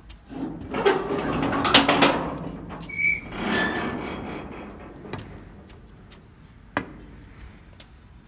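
Corrugated sheet-metal gate door being unlatched and pulled open: a metal scraping and rattling for about two seconds, then a short hinge squeal around three seconds in as the door swings. One sharp tap comes near seven seconds.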